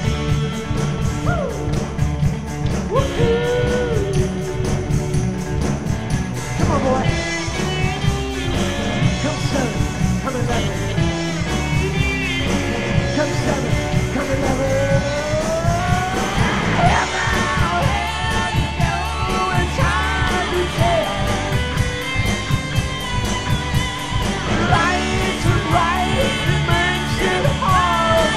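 Rock band playing live: drum kit keeping a steady beat under electric guitars, with singing over the top.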